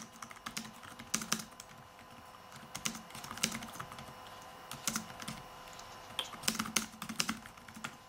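Typing on a ZAGGKeys Folio Bluetooth keyboard for the iPad Air: quick runs of key clicks in short bursts, with brief pauses between words.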